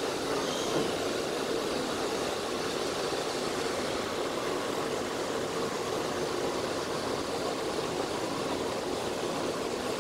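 Steady rushing hum of distant jet airliner engines running, with no change in level.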